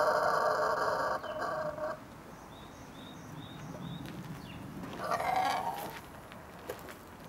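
Rooster making a long, drawn-out, strained crow that ends about two seconds in, then a shorter cry about five seconds in; faint high cheeps come in between.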